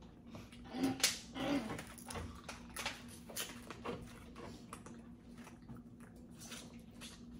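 Crawfish shells being cracked and picked apart by hand: a scatter of small clicks and crunches, busiest about a second in, mixed with eating sounds.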